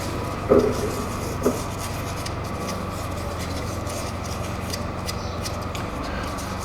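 Metal lathe running steadily with a constant motor hum as it turns a vise part in the chuck. Two brief louder sounds come about half a second and a second and a half in.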